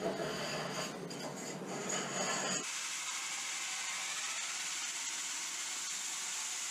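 Handling and knocking for about two and a half seconds, then a handheld drill spins an inside-out sanding belt looped around a wooden mast, a steady high whirring hiss.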